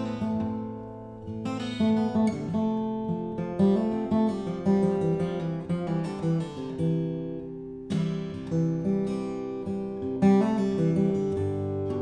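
Solo acoustic guitar playing an instrumental passage of picked and strummed chords, without singing.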